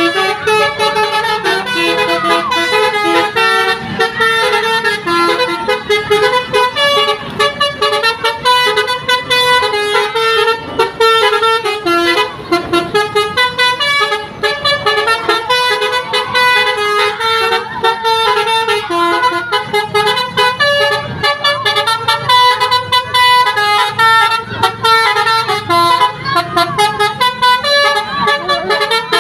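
Telolet basuri musical bus horn playing a tune: a fast run of short stepping notes that goes on without a break.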